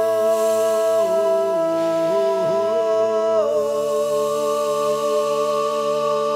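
Transition music of long held notes forming a sustained chord. The lower notes wobble between about one and two and a half seconds in, and the chord shifts to new notes about three and a half seconds in. It stops abruptly at the end.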